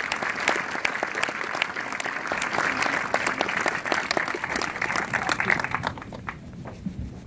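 Crowd applauding: many hands clapping densely, thinning out and fading away about six seconds in.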